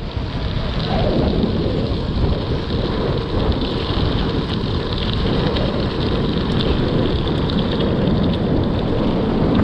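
Tyres crunching over loose gravel and wind rushing over the microphone as a gravel bike is ridden along a gravel road, a steady noisy rush with a fine crackle.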